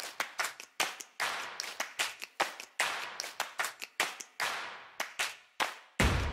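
A fast, uneven run of sharp slaps or claps, about four a second, each dying away quickly. A deep thumping beat comes in near the end.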